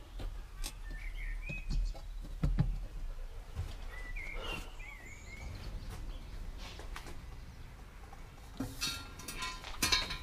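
Sharp knocks and clinks of metal parts being handled, loudest about two seconds in, with a scraping, rustling stretch near the end. Birds chirp faintly in the background, twice.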